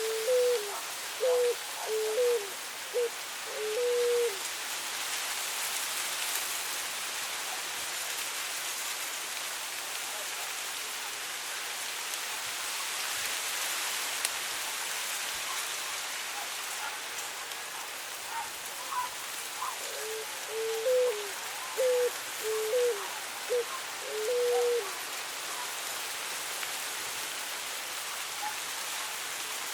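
Steady wind through tall dry grass. A cuculí dove coos twice, each phrase a run of short low coos ending in a longer held note: once at the very start and again about twenty seconds in.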